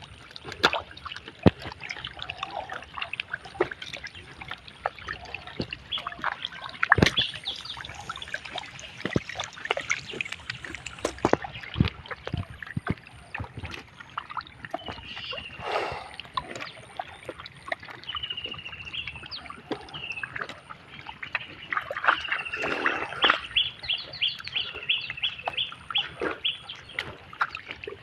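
Squelching and splashing of hands and bare feet working through wet pond mud and shallow water, with many small slaps and clicks. In the second half a bird calls in quick runs of short, high, repeated notes.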